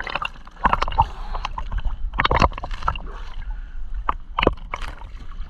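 Seawater splashing and sloshing close to the microphone of a swimmer swimming through choppy waves: irregular splashes of strokes and water.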